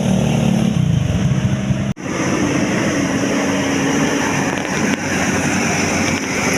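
A heavy vehicle's engine runs close by and fades out within the first second. After a sudden cut about two seconds in, steady road traffic noise follows with a faint low hum.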